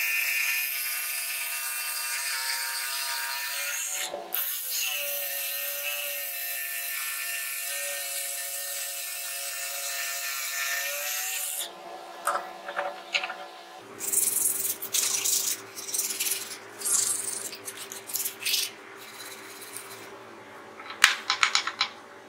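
Eastman electric jigsaw cutting through plywood: a steady motor whine with the blade rasping through the wood, broken once briefly about four seconds in, then stopping after about twelve seconds. After it stops come irregular scraping and rubbing sounds and a few sharp knocks as the plywood pieces are handled.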